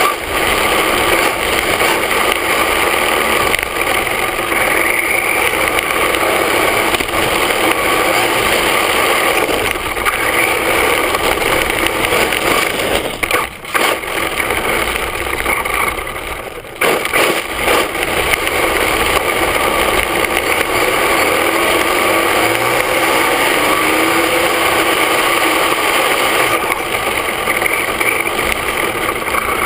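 Onboard sound of an HPI Mini Trophy RC truck with a VXL-3s brushless system driving fast over rough asphalt: motor and gear whine under a loud rush of tyre and wind noise. The noise dips briefly twice, about halfway through.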